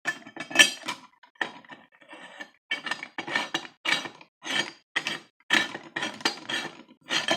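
Metal parts of a LEM #8 meat grinder clinking and scraping as they are fitted together, in a run of short knocks about every half second, busier through the second half.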